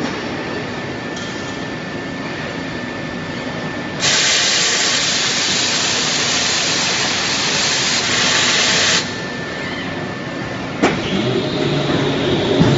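Forging line machinery running steadily, with a loud spraying hiss that starts about four seconds in and lasts about five seconds, then a single sharp knock about two seconds after the hiss stops.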